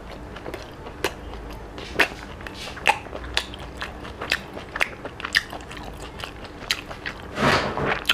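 A man chewing a mouthful of octopus curry with rice, mouth closed: irregular wet clicks and smacks of chewing.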